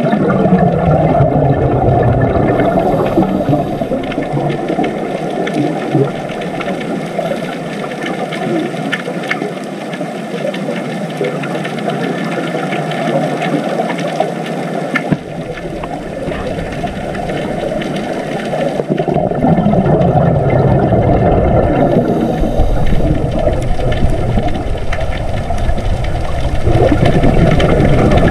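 Muffled underwater ambience: a steady low rush of water, with a couple of slow falling tones, growing deeper about halfway through.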